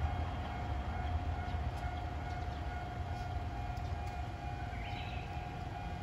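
Japanese level-crossing warning bell ringing steadily in a fast repeating electronic clang, the crossing held down while the next train is awaited. A low rumble runs underneath, stronger in the first second, and a short rising high sound comes about five seconds in.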